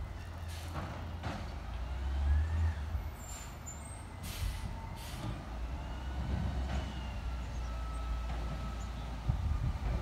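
Labrie side-loading garbage truck's diesel engine running, with its low rumble rising briefly about two seconds in as the automated arm works. Faint gliding whines and several short hisses of air are heard, the last of them about four to five seconds in.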